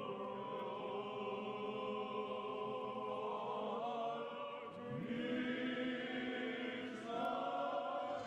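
Choir of voices singing a slow, sustained chant, holding long notes together and moving to a new chord about five seconds in and again near the end, in the manner of an Orthodox funeral chant.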